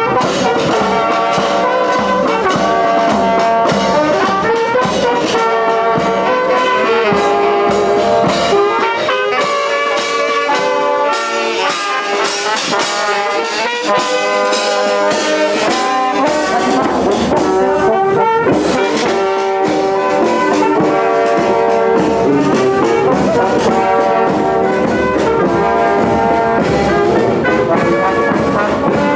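Marching brass band playing: saxophones, trumpets, trombones and tuba over a steady bass-drum and snare beat.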